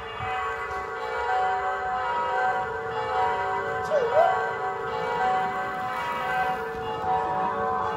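Bells ringing, several steady tones overlapping, with a brief swooping tone about four seconds in.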